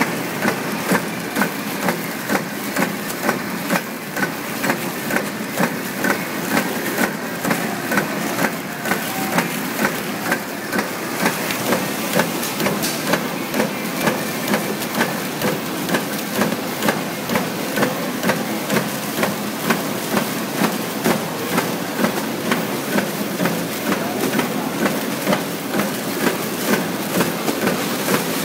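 Automatic soap wrapping machine running, a steady mechanical clatter with a regular knock about three times every two seconds as it cycles.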